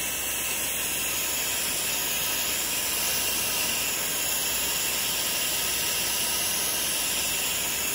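Soft-wash spray wand sending a steady jet of wash mix up onto a gutter and vinyl siding: an even, rushing hiss of spray.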